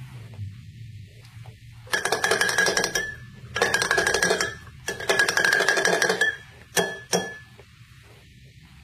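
Metal spoon stirring briskly in a drinking glass, rattling against its sides in three runs of about a second each, with the glass ringing, then two single clinks.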